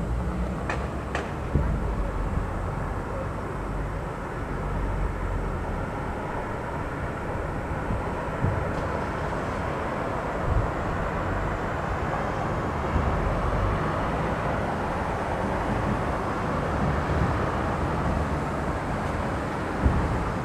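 Aerial firework shells bursting over a continuous low rumble of booms, with sharper bangs standing out about 1.5 s in, around 8.5, 10.5 and 13 s, and twice more near the end.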